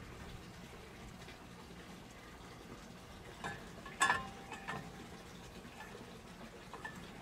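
Stainless-steel outboard motor mount tubes knocking against their brackets on a boat's stern rail as they are worked into place. A small click comes about three and a half seconds in, then a sharper metallic clink about four seconds in that rings briefly, over a faint steady hiss.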